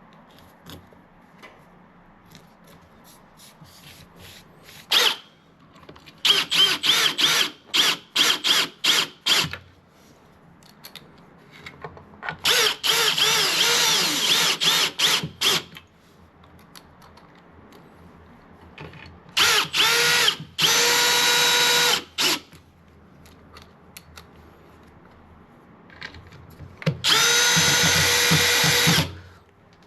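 Power drill running in four bursts. First come short stop-start pulses, then a longer run whose pitch wavers under load, then two steady runs of two to three seconds each that spin up quickly to full speed.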